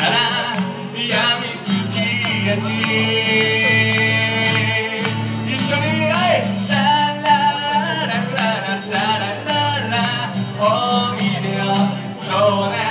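A man singing live into a microphone, holding long notes over strummed acoustic guitar chords, in a light country style.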